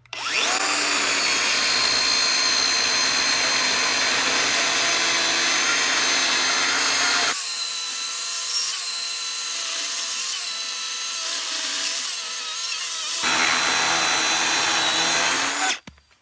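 Makita XCU02 36-volt cordless chainsaw running and cutting through a five-inch red alder round. It starts just after the beginning and cuts off near the end. Through a stretch in the middle the sound changes, played back at four times speed.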